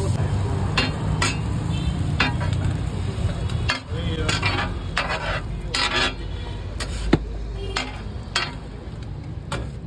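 Wide metal spatula scraping and tapping on a flat griddle in about a dozen irregular strokes as a bread omelette is lifted, stacked and pressed, with food sizzling on the hot plate beneath.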